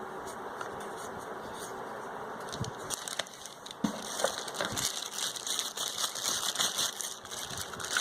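Plastic packaging crinkling and rustling as the set-top box accessories are handled and taken out of the box. It starts with a few scattered clicks and knocks and thickens into continuous crinkling over the second half.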